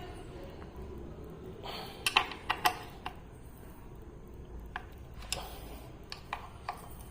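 Sharp clicks and taps of a hand tool on the clutch cover bolts as they are checked for tightness one by one: a quick run of three or four about two seconds in, then single clicks spaced out near the end.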